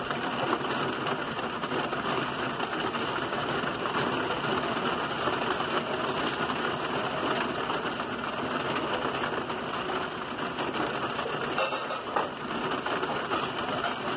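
Heavy rain pouring down onto a concrete driveway: a steady, even hiss of downpour that holds throughout.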